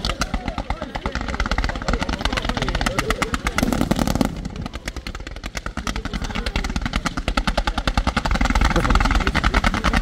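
Fireworks display: a rapid, continuous volley of shots from ground-fired cakes fanning comets and small star bursts, many reports a second. It eases off briefly about four seconds in, then builds again.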